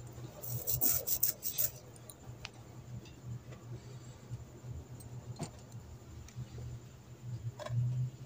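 Hand socket wrench clicking and clinking against a steel bolt and the metal gearbox casing as the rear-housing bolts are tightened. There is a quick run of sharp metallic clicks about half a second in, then a few single clicks, over a steady low hum.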